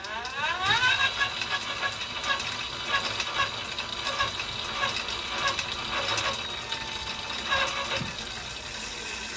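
A 24-volt electric bike kit motor spinning the bike's rear wheel with no load. Its whine rises as it speeds up in the first second, then runs steady with a regular ticking.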